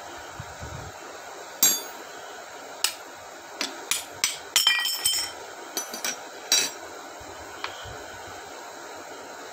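Sharp metallic clinks and taps as hand tools and the parts of a dismantled car starter motor are handled. About a dozen come in an irregular cluster from about a second and a half in to about seven seconds, some ringing briefly, and the first is the loudest.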